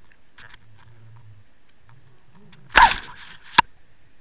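A fishing rig knocking underwater, heard through the camera housing: a loud scraping knock about two-thirds of the way through, then a single sharp click under a second later, over faint scattered ticks.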